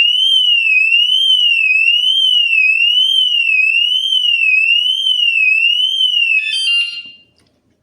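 Main alarm of a BANGTING 110 dB anti-theft bike alarm going off, set off by continued tampering with the bike after the warning tone: a loud electronic siren rising and falling about every two-thirds of a second. It cuts off about six and a half to seven seconds in.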